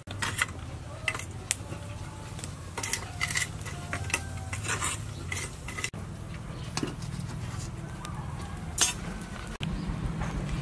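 Scattered light clinks and knocks of charcoal and metal cooking gear being handled at a clay charcoal stove, about a dozen sharp ones in the first nine seconds, over a steady low rumble.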